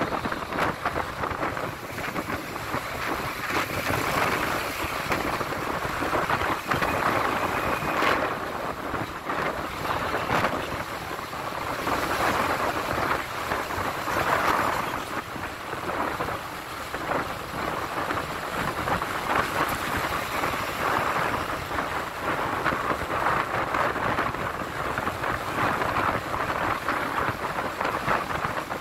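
Wind noise on the microphone mixed with road and traffic noise from a vehicle driving along a highway: a steady rushing hiss that swells and fades.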